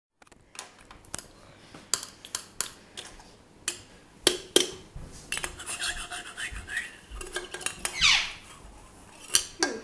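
Hard objects clinking and clattering on a surface: a series of sharp knocks and clinks, with a short scraping sound about eight seconds in.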